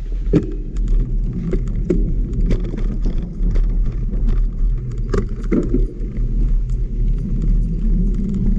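Mountain bike rolling along a dirt trail: a steady low rumble from the tyres and the ride, with frequent knocks and rattles as the bike goes over bumps.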